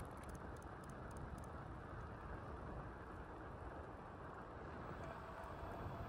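Steady rush of wind on the microphone and tyre noise from a bicycle rolling along freeway pavement. A few faint ticks come in the first second or so, and a faint thin high tone sounds near the end.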